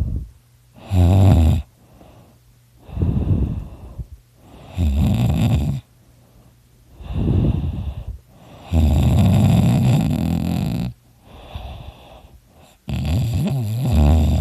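A person snoring very loudly in sleep, with one loud snoring breath after another, about every second or two. One long snore comes near the middle.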